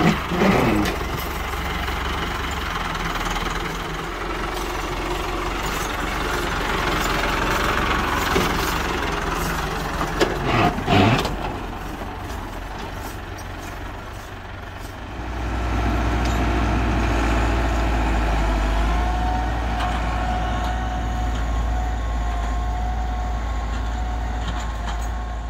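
Massey Ferguson 385 tractor's diesel engine running steadily under load while pulling a tine cultivator through the soil. A little past halfway it grows louder and a steady whine rides over it.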